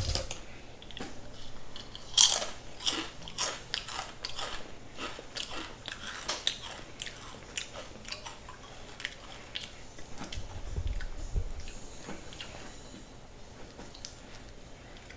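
Close-miked bites and chewing of a big vegan club sandwich, with crisp crunches that come thick in the first half and thin out toward the end.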